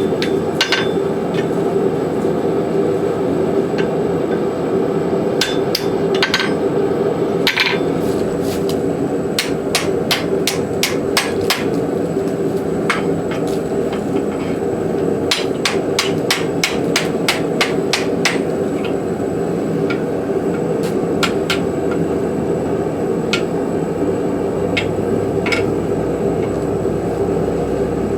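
Hand hammer striking hot rasp steel in forging, irregular blows with a quick run of strikes in the middle, over the steady running noise of the forge.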